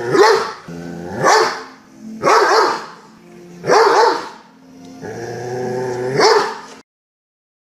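Doberman barking five times at uneven intervals, deep and loud, with low steady growling between some of the barks; the sound stops abruptly near the end.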